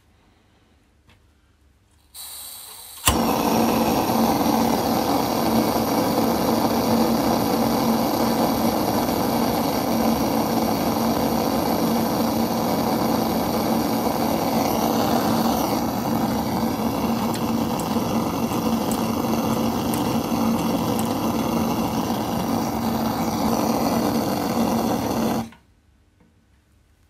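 Vintage Korean portable gas camp stove being lit: gas starts to hiss, its built-in igniter clicks sharply about three seconds in, and the burner catches and burns steadily with a loud rushing noise and a steady low hum. Near the end the gas is shut off and the sound cuts out suddenly.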